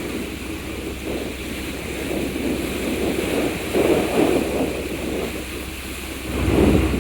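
Wind buffeting the microphone aboard a moving ferry, over the rush of water along the hull, in irregular gusting surges, with a steady low hum of the ship underneath.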